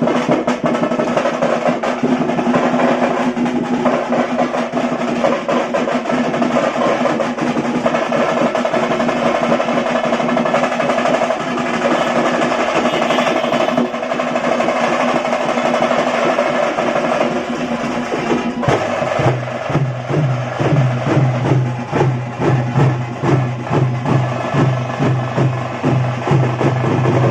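Tamate frame drums played together in a loud, dense, fast rhythm. About two-thirds of the way in, the pattern changes to a steady pulse of deep strokes, about two or three a second.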